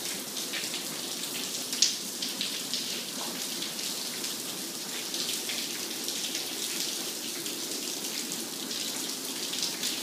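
Water from a burst attic water heater streaming and dripping through the ceiling light fixture and vent, splashing onto a wet floor in a steady rain-like patter. There is one sharper splash about two seconds in.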